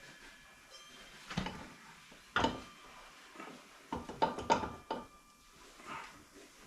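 Metal clinks and knocks with brief ringing as a motorcycle front axle is worked through the fork, wheel hub and spacer, about seven strikes spread irregularly, several close together near the middle.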